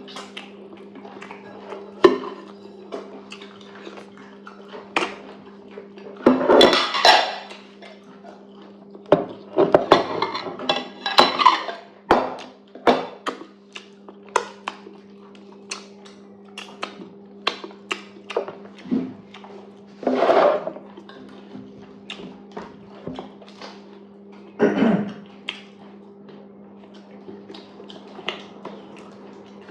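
Dishes and cutlery clinking and tapping many times as someone eats at close range, with a few longer, louder noisy sounds among them, over a steady low hum.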